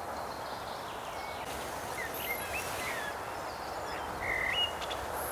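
Outdoor background noise, a steady hiss, with a few short bird chirps in the middle and another bird call near the end.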